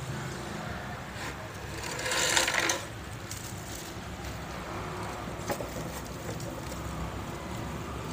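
A bundle of oil-soaked bamboo incense sticks rustling and clattering as it is drawn out of the dipping container and laid on the drying rack, loudest in a brief rustle about two seconds in, with a single click a few seconds later. A low steady hum runs underneath.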